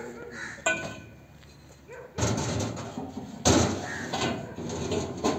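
A sharp metallic clank with a short ring about a second in, followed by two bursts of loud rushing noise.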